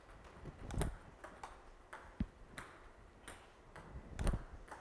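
Table tennis ball clicks as serves and receives are played: sharp ticks of the celluloid ball on the table and off the rackets, at irregular intervals. Two duller, heavier thumps fall about a second in and near the end.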